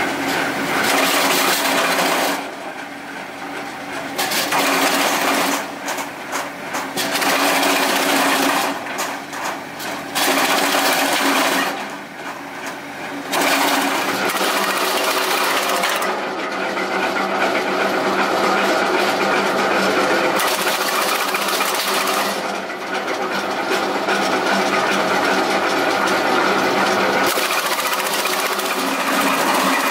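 Tractor-driven Red Dragon RP200 wood chunker, six knives per shaft, chopping a long branch into short chunks: loud, rattling chopping in several stretches of a second or two, with the machine running steadily in between. A little before halfway the chopping becomes almost continuous.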